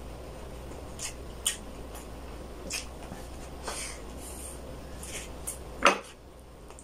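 Close-miked eating sounds: scattered wet clicks and lip smacks while chewing and tearing at a glazed whole chicken, with one louder, fuller smack near the end.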